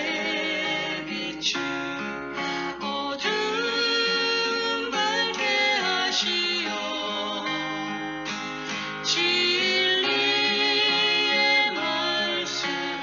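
Gospel song music: acoustic guitar strumming under a melody line with vibrato.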